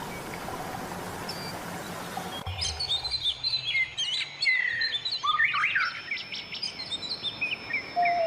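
A steady rushing noise that cuts off abruptly about two and a half seconds in, giving way to a busy chorus of small birds chirping: many quick, high, sliding notes overlapping. Just before the end a steady lower note starts.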